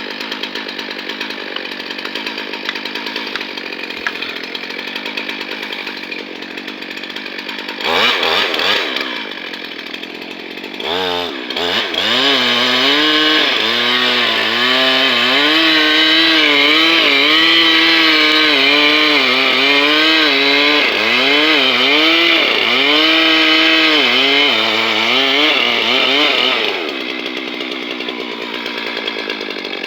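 Chainsaw idling, revved briefly twice, then held at full throttle cutting into the trunk of a large hemlock for about fifteen seconds, its pitch repeatedly dipping under load and recovering. Near the end it drops back to idle.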